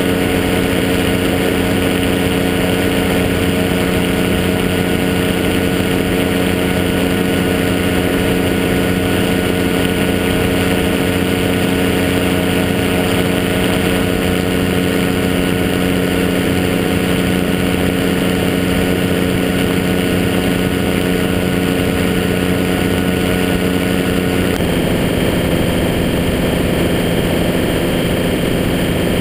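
Rotax 503 two-stroke twin engine of a Quicksilver GT400 ultralight running steadily at flight power, with propeller and air rush over the wing-mounted microphone. About 25 seconds in, the engine note shifts abruptly and then holds steady at its new pitch.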